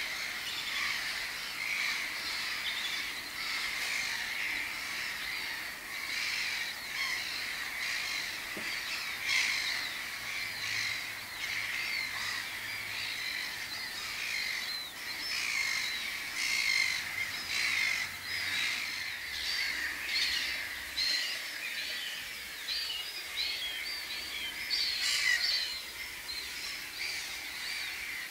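Many birds calling at once: a continuous chatter of short, overlapping calls with no pause, a few louder calls standing out here and there.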